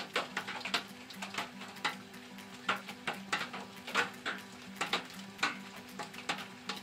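Rain pattering and dripping on a gazebo's roof and wooden railing: irregular sharp taps of drops, several a second, over a soft hiss, with low sustained tones underneath.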